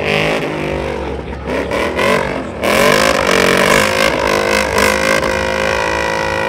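Chevrolet Silverado pickup engine revving hard during a burnout, its tyres spinning on the pavement. The pitch rises and falls over the first few seconds, then jumps up and is held high from about halfway through.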